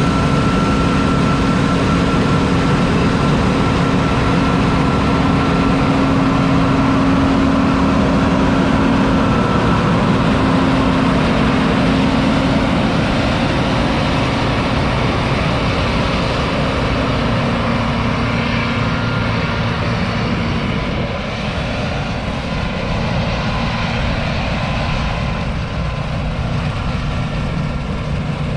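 John Deere 9780i CTS combine harvester running, its 8.1-litre six-cylinder diesel and machinery giving a loud, steady drone. A whine on top of it fades out about two-thirds of the way through, and the sound gets slightly quieter.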